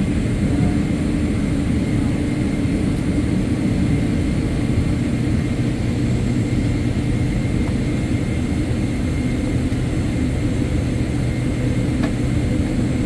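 Cabin noise of a Boeing 777-300ER with its GE90-115B turbofans running at low power while taxiing, heard from a window seat behind the wing: a steady low rumble with faint, steady whining tones above it.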